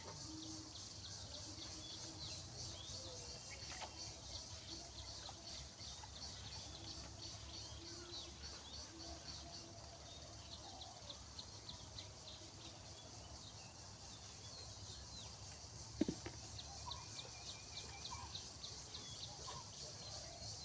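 Outdoor ambience of birds calling over a steady, rapid high-pitched chirping, with a low rumble underneath and one sharp knock about sixteen seconds in.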